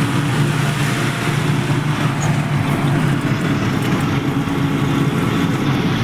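A motor vehicle's engine running steadily, a constant low drone with road or wind noise over it.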